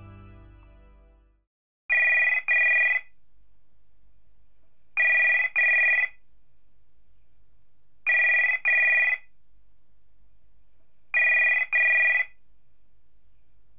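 Music fades out, then a telephone rings in a double-ring pattern: four rings about three seconds apart, over a faint low hum.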